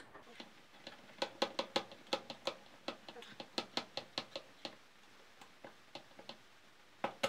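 Sharp metallic clicking of a small spanner working the bolt that holds a rear brake master cylinder to its footpeg bracket. The clicks come in a quick run, about five a second for three seconds, then a few slower, fainter ones and one last click near the end.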